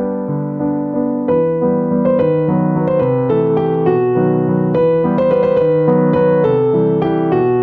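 Background piano music: a melody of single notes over lower chords, the notes changing every fraction of a second and growing busier about a second in.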